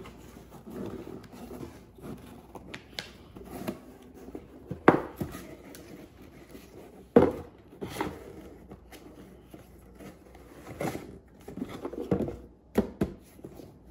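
A cardboard shipping box being handled and rummaged through: rustling and scraping with several sharp knocks, the loudest about five and seven seconds in.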